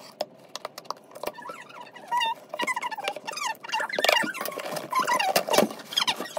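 Scissors cutting through the taped seam of a cardboard shipping box, with many small clicks and short high squeaks of blade and cardboard, then the box flaps being pulled open near the end.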